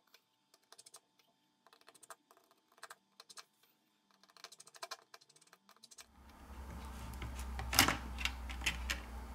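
Faint, scattered small clicks and taps of a precision screwdriver working the screws of a phone's metal middle frame. About six seconds in a low steady hum comes up, and a few louder clicks follow as a plastic pry tool works under the metal bracket.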